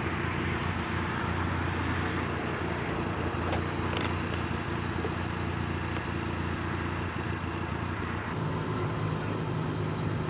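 Car engine and tyre noise heard from inside a moving car, steady, with a couple of faint ticks about four seconds in.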